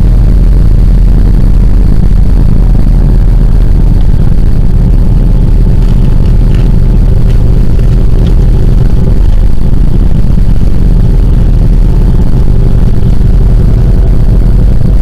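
Loud, steady low rumble of a moving vehicle, engine and road noise heard from inside the cabin.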